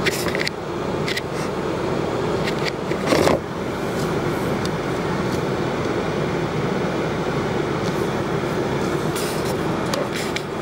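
Steady rushing noise inside a running car's cabin, with a few short knocks and rubs as a phone is handled against the dashboard. The loudest knock comes about three seconds in.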